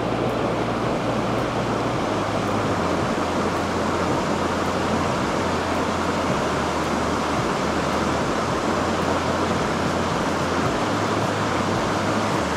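Steady rush of a shallow river running fast over rocks and rapids.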